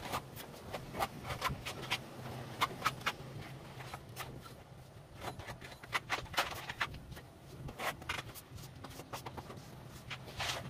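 A trowel scraping wet cement mortar across a concrete wall in short, irregular strokes, over a steady low hum.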